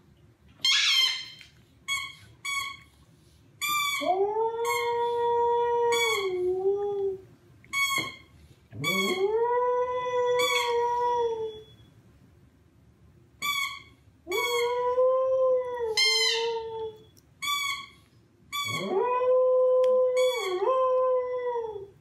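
A Samoyed howls four long howls, each rising at the start and then held. Between the howls come short high squeaks, in pairs and small bunches, from a rubber squeaky toy it presses under its paw, as if playing along.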